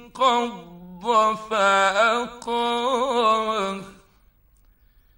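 A man reciting the Quran in the melodic, ornamented mujawwad style: long held notes with wavering melismas and short breaks, which stop about four seconds in, leaving near silence.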